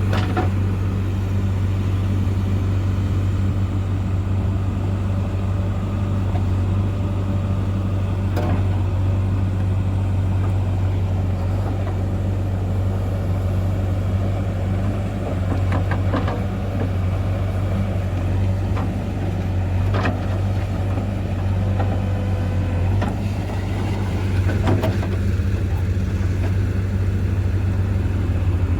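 Heavy diesel engine running steadily at a constant low pitch, with a few sharp knocks scattered through it.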